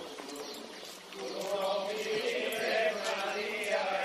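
A group of voices chanting a religious hymn together, slow sustained notes with a short lull about a second in before the chant swells again.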